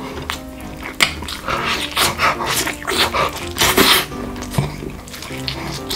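Background music, with several short, loud rushing noises over it in the middle.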